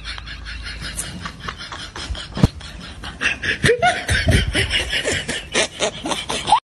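A man laughing in quick, repeated pulses that get louder about halfway through and cut off suddenly near the end, with one sharp click before the laughter swells.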